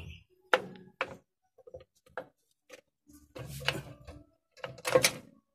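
Sharp metallic clicks and clinks from an Isuzu Elf's drum brake shoe and its springs being worked off the backing plate by hand, five or so separate knocks with the loudest near the end.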